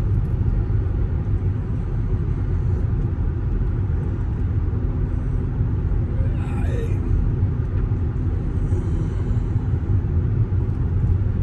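Steady low road rumble from Michelin Premier LTX tires, heard inside the cabin of a vehicle cruising on the road.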